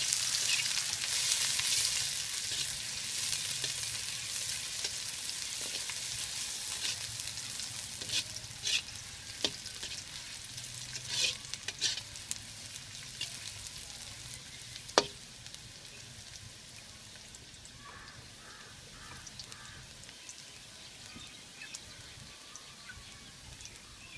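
Sliced onions sizzling in hot oil in a karahi, stirred with a metal spatula that scrapes and knocks against the pan a few times. The sizzle is strongest at first and dies down over the second half.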